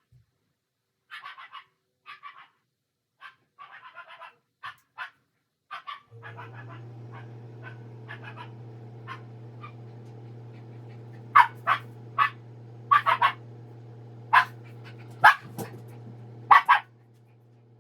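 A dog barking: softer short yips at first, then a run of loud, sharp barks in the second half. A steady low hum comes on about six seconds in and drops off just before the end.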